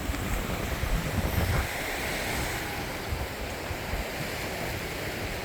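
Ocean surf washing in as a steady hiss, with wind buffeting the microphone. The gusts are strongest in the first second and a half.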